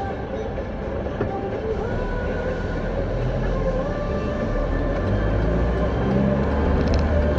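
Truck engine and road noise heard from inside the cab while driving slowly, the low rumble building near the end as it picks up speed.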